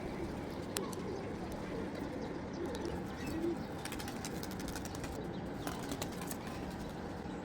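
Pigeons cooing: low, soft coos over a steady background noise, with a few light clicks.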